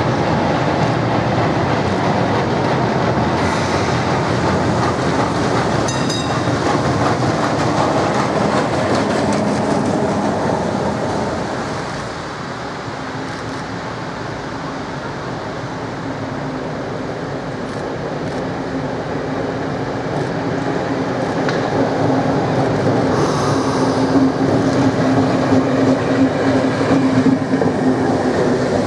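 Historic tramcars running on wet street tracks, with a steady rumble of wheels on rails. At about 12 s the sound drops, and a steady hum builds and grows louder towards the end.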